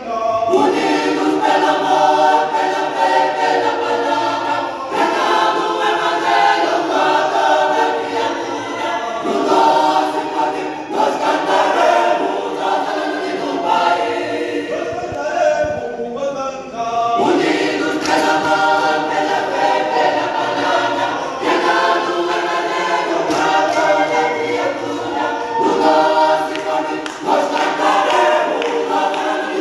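Church choir singing a gospel hymn, many voices together in harmony, in long phrases with short breaths between them.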